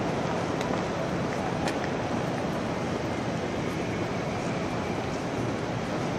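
Busy train-station concourse at rush hour: a steady din of many voices and movement echoing through a large hall, with occasional sharp clicks.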